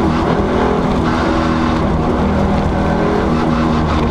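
Ford Sierra RS Cosworth's turbocharged four-cylinder engine running hard at speed, heard from inside the cabin with tyre and road noise.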